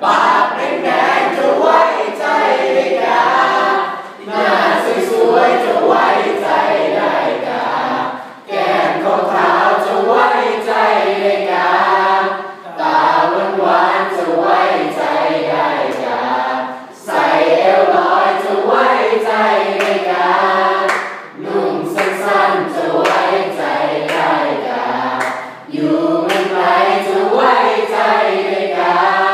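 High-school student choir singing in parts, in phrases of about four seconds with short breaks between them.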